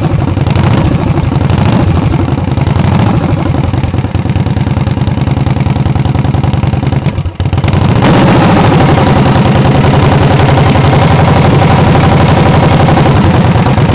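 1976 Harley-Davidson Shovelhead V-twin, freshly rebuilt (cammed, flowed, balanced), running loud on one of its first runs; it distorts on the microphone. It briefly dips a little past halfway, then runs steadier and louder.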